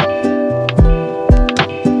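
Background music with a steady beat: pitched instrument notes over a kick-drum pulse about twice a second.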